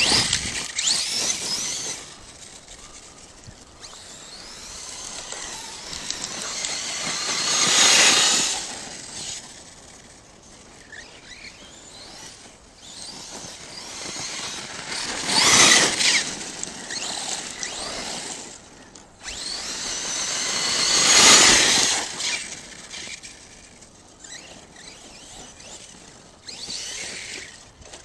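ARRMA Kraton 6S RC truck's brushless electric motor whining through hard acceleration runs on dirt. The motor is heard in three main bursts several seconds apart, each rising in pitch to a loud high whine and then dropping away.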